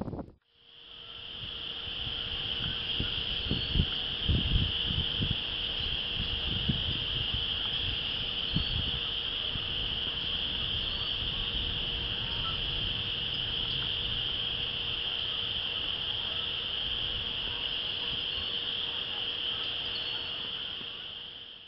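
Dense chorus of spring peepers calling from flooded woods, blending into one steady, high-pitched ring, with a few low wind gusts on the microphone about three to five seconds in.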